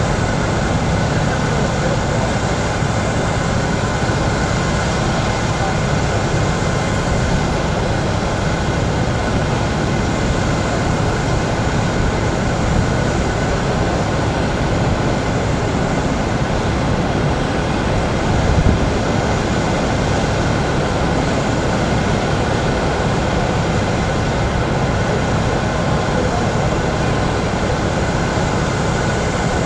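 A loud, steady rushing din with a low rumble, and one short low thump about two-thirds of the way through.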